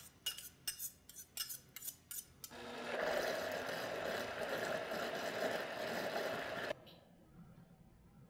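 A quick series of light clinks against a plastic blender jar, then the blender motor starts up, runs steadily for about four seconds and cuts off suddenly.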